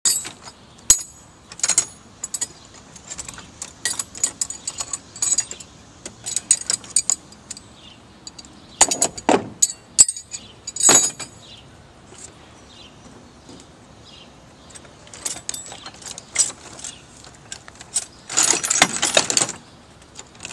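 Metal tools and parts being handled: a series of sharp clinks and jangles, with a denser burst of rattling near the end.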